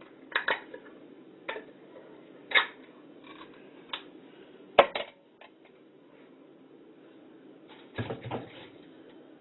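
Kitchen clatter of dishes and utensils: a series of scattered knocks and clinks, the sharpest a little before the middle, with a rattling cluster near the end.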